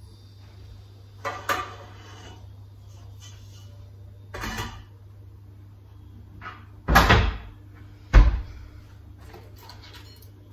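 Kitchen cupboard doors and drawers being opened and shut: a few separate knocks and clatters, the two loudest thumps about two-thirds of the way in, over a steady low hum.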